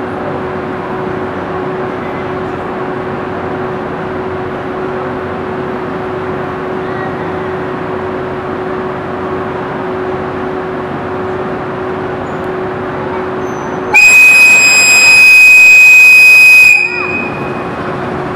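Steady hum of the train standing at the platform, then about 14 seconds in a loud, high whistle from the EF81 electric locomotive sounds for nearly three seconds and cuts off, its departure signal.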